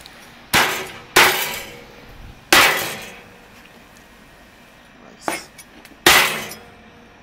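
Large kitchen knife chopping through a grilled chicken onto a wooden cutting board: four heavy chops and one lighter one, the first three within about two seconds, then a pause before the last two.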